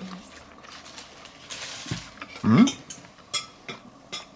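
Cutlery clicking against a plate while food is being tasted. About halfway through, the eater gives a short rising 'mm' of approval with his mouth closed.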